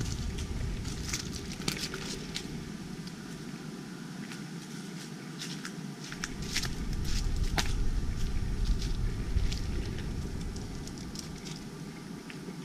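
Outdoor ambient noise picked up by a GoPro Hero 5's built-in microphones while it is carried walking on a Karma Grip gimbal: a low rumble that fades out for a few seconds mid-way and comes back, with scattered sharp clicks and taps from handling and steps.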